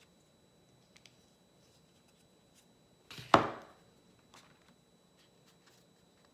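Faint small taps and scrapes of a paintbrush working paint on a palette and paper, with one loud, short, sudden sound a little over three seconds in that fades within half a second.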